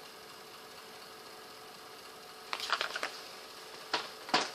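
A plastic eyeshadow palette being handled: a quick cluster of clicks and knocks about two and a half seconds in, then two sharp clicks near the end.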